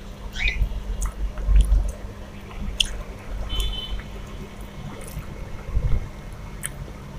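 Fingers mixing and squeezing rice with chicken curry on a steel plate, with scattered small clicks and a few low thumps.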